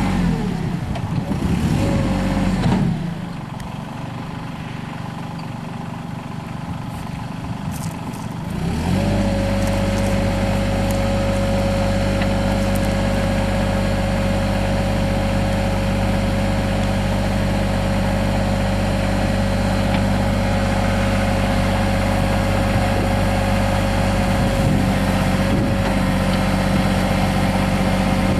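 Diesel engine of a Mahindra 3616 compact tractor, its note falling away over the first few seconds. After a quieter stretch it comes back up sharply about nine seconds in and then idles steadily.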